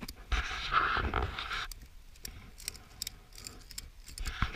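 Hand-work noises at a car's fuel filler area: a noisy stretch about a second long near the start, then scattered light clicks and scrapes.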